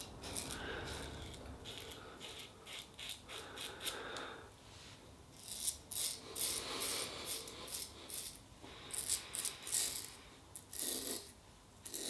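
Merkur Futur double-edge safety razor scraping through lathered stubble on the cheek, shaving against the grain. Faint at first, then a run of short, quick scratchy strokes in the second half, a sound likened to buttering toast.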